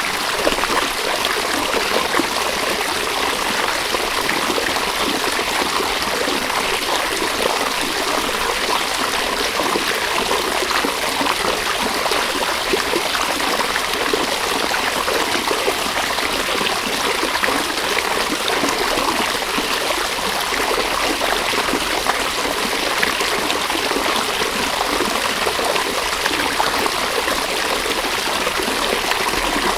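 River water running and babbling steadily over stones, a continuous rushing with fine splashing texture.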